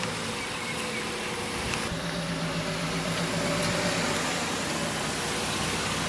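Steady mechanical hum with a broad hiss; the hum grows a little stronger about two seconds in.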